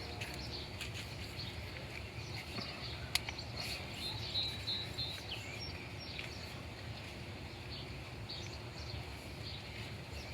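Outdoor background noise with a steady low rumble. A sharp click comes about three seconds in, and a short run of high bird chirps follows a second later.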